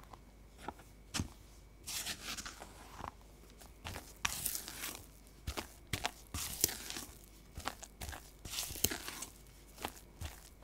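Spatula folding flour into creamed butter and egg in a glass bowl. The stirring is irregular, with soft scraping rushes and short clicks of the spatula against the glass, several a second, as the thick batter comes together.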